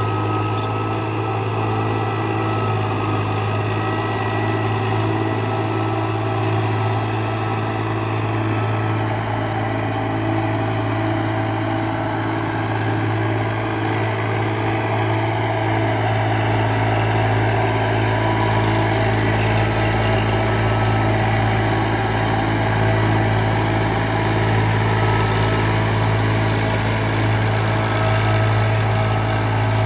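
Tractor diesel engine running steadily at working speed while it drives a rear rotary tiller through wet field soil, a constant low drone.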